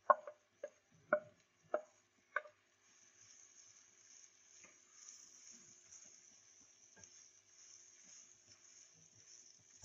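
Black plastic spatula knocking five times against the plate and pan rim as fried okra is scraped into a nonstick frying pan, followed by soft stirring with a few light clicks over a faint steady hiss from the frying pan.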